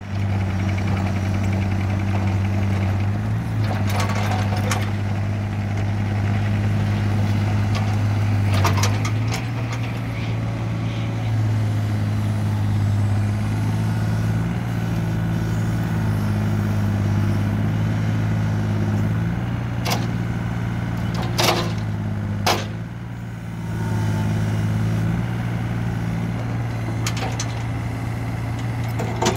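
Takeuchi TB235CR mini excavator's diesel engine running steadily while the hydraulics work the boom, arm and bucket. The engine note shifts a little in pitch as the load changes. A few sharp clanks come at about 4 and 8.5 seconds in and three more between 20 and 23 seconds.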